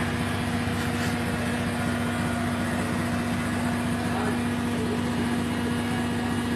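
Steady machine running, with a constant low hum and an even low rumble that do not change.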